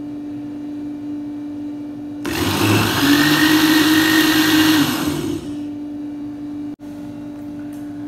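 Electric blender blending a strawberry-and-yogurt milkshake: a steady hum, then about two seconds in the motor runs loud and whirring for about three seconds before dropping back.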